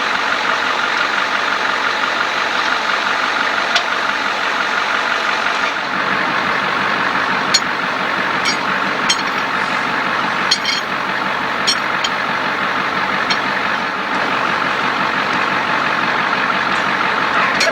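A vehicle engine running steadily, with a few short sharp clicks in the middle stretch.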